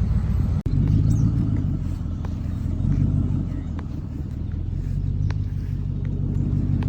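Motor vehicle engine running while driving, a steady low rumble, with a few faint clicks and rattles over it.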